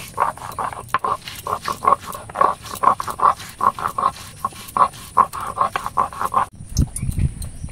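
Peeled garlic being crushed on a shil-nora, a pitted stone grinding slab worked with a stone roller, in quick rhythmic rubbing strokes about four a second. The strokes stop suddenly about six and a half seconds in, followed by a few low thuds.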